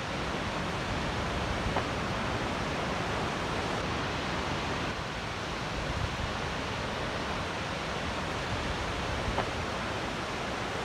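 Steady, even rush of ocean surf and wind.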